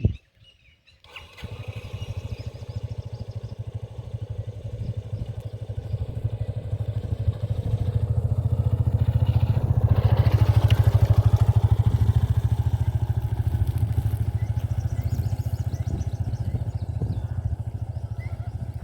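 Motorcycle engine running while riding, a steady low pulsing note that comes in about a second in, grows louder around ten seconds in and then eases a little.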